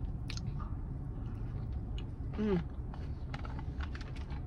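A person chewing a mouthful of sushi, with faint wet mouth clicks. About two and a half seconds in comes a short falling "mm" of enjoyment. A steady low rumble runs underneath.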